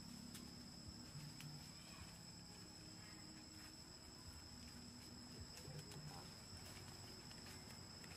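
Faint outdoor ambience that is close to silence: a steady, high-pitched insect drone, such as crickets or cicadas, with a few faint ticks.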